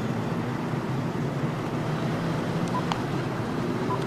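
Steady low outdoor background rumble with a faint steady hum, and two light clicks about three seconds in.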